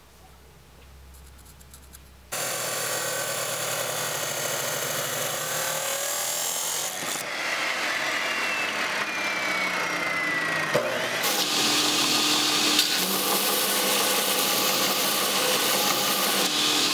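Abrasive chop saw cutting through a forge-welded Damascus steel billet, then a belt grinder grinding the forge scale off the cut pieces. The cutting starts suddenly a couple of seconds in, a falling whine follows, and the grinder takes over about eleven seconds in.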